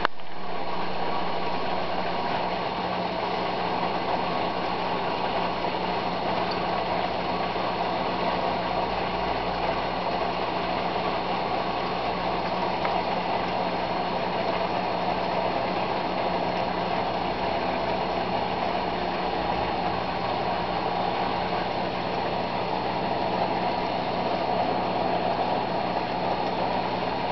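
Aquarium filter pump running: a steady mechanical hum with a constant wash of water noise.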